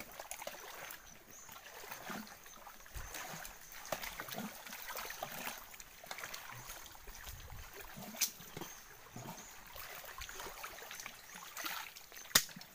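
Faint trickling and splashing of water in shallow water and a basin, with a couple of sharp knocks, one about eight seconds in and one near the end.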